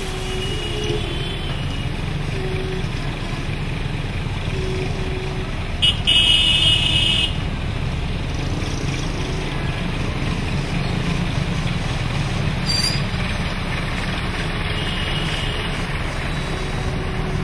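Road traffic on a flooded road: engines of cars, motorcycles and a tractor running steadily as they wade through the water. A vehicle horn sounds once, loud, for about a second and a half about six seconds in.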